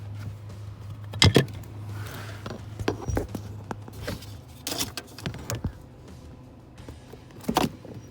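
Hands and tools knocking and rattling against parts under a car's dashboard: a handful of sharp knocks and clatters, the loudest about a second in and another near the end, over a low steady hum.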